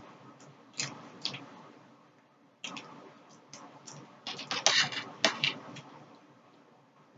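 Close-miked eating: chewing with sharp mouth clicks and smacks, a few scattered at first, then a louder run of them about four to five seconds in.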